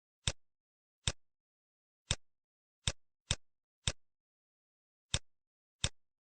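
Eight sharp clicks from a computer mouse at uneven intervals, two in quick succession about three seconds in, with dead silence between them.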